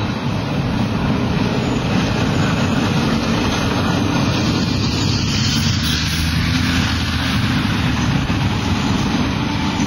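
Street traffic: a steady low rumble of vehicles running close by.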